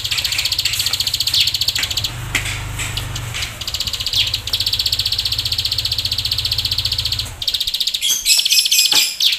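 Caged plain prinia (ciblek sawah) singing rapid, buzzing trills again and again. Halfway through comes one long unbroken trill of about three seconds, and near the end a quicker jumble of notes.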